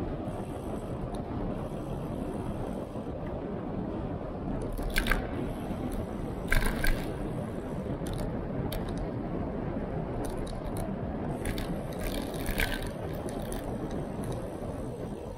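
Steady wind and tyre noise on the microphone of a camera riding on a road bike over asphalt, with several brief rattles.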